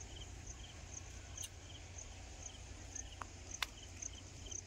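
Insects chirping in a steady rhythm, short high chirps about twice a second, over a low rumble of wind on the microphone. A sharp click about three and a half seconds in.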